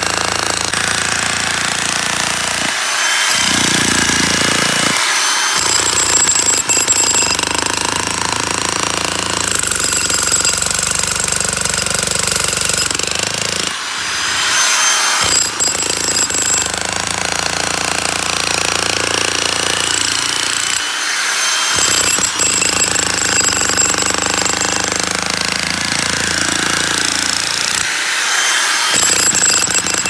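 Corded electric demolition hammer with a pointed chisel bit hammering steadily into a concrete slab, breaking it up.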